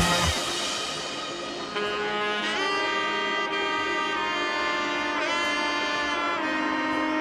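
Background music: the drums and bass drop out right at the start, leaving long held melody notes with a few pitch slides.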